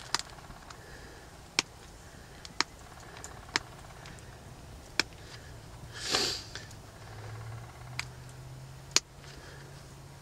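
Antler tine pressure-flaking a stone arrowhead: sharp, separate clicks as small flakes pop off while a notch is worked into the side of the point, about seven clicks at irregular intervals of roughly a second.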